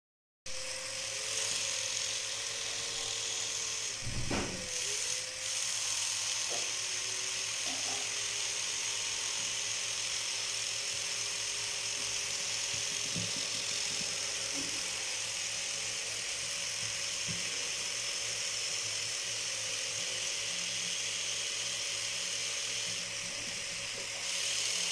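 Small brushed DC motors whirring steadily at speed: a high-pitched motor whine with a faint hum under it. There is a brief knock about four seconds in.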